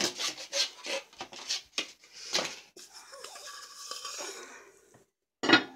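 Handling noise: a paper plate in its holder and a plastic food tray being moved about, giving a string of light knocks, taps and rustles. The sound drops out briefly near the end, then comes one louder knock.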